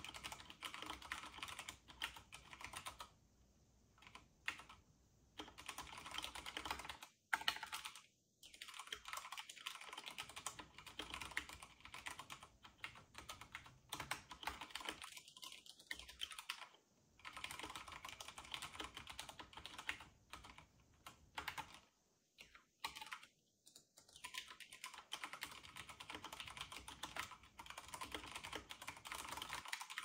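Fast typing on a full-size CD108 mechanical keyboard with Cherry MX Brown switches: a dense run of key clicks and clacks, broken by several short pauses.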